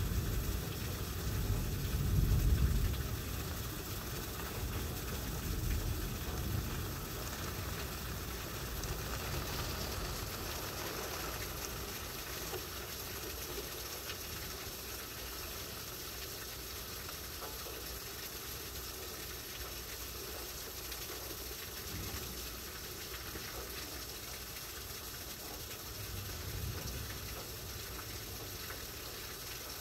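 Thunder rumbling in the first few seconds, with weaker rumbles about six seconds in and again near the end, over a steady hiss of heavy tropical-storm rain.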